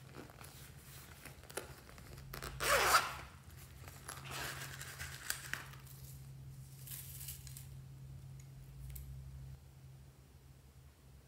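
Slime being stretched and worked by hand, making short noisy rustles. The loudest comes about three seconds in, with two quieter ones after it.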